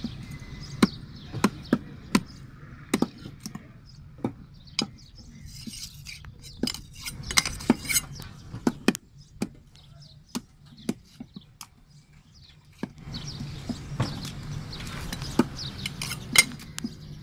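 Heavy curved fish-cutting knife striking and scraping a black pomfret on a wooden log chopping block: a run of sharp, irregular knocks, with a quieter spell about halfway through.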